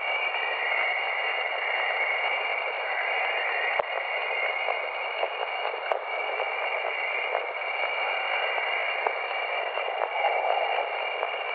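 Jupiter's radio emissions (Jovian chorus) played as sound: a steady static hiss with a few thin unchanging tones high up, a band of pitch that wavers up and down, and scattered faint crackles.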